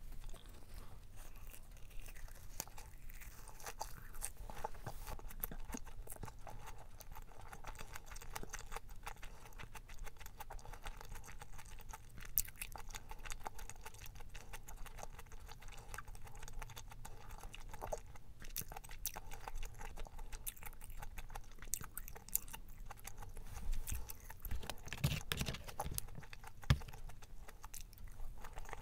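Close-miked chewing of a mouthful of perilla-leaf wrap filled with stir-fried pork intestines: steady soft wet chewing and small mouth clicks, with a few louder knocks and clicks near the end as another spoonful goes in.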